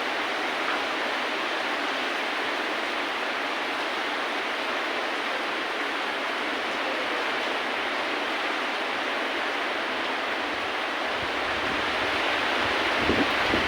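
Steady rain falling, an even hiss. A low rumble joins it about eleven seconds in.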